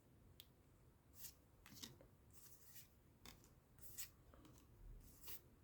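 Faint, scattered soft flicks and slides of trading cards being handled and flipped through one at a time, just after a booster pack is opened.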